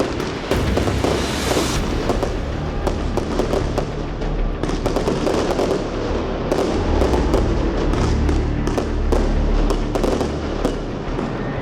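Four Jorge Solaris firework batteries firing together: a dense, unbroken run of shots and crackling bursts.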